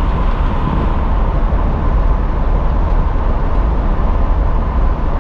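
Steady road and engine noise heard from inside a moving vehicle's cab, a constant deep rumble under an even hiss, with no breaks or changes.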